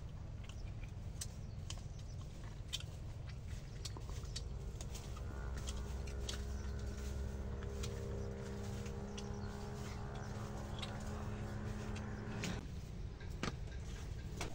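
Light clicks and taps of chopsticks on a bowl and on a banana leaf while eating. A steady motor hum joins about a third of the way in and cuts off suddenly shortly before the end.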